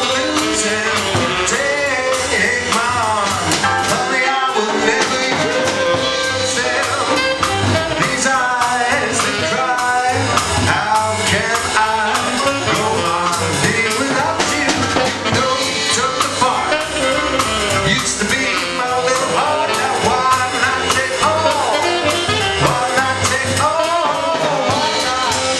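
A man singing into a microphone with a live band; upright bass and piano are among the instruments.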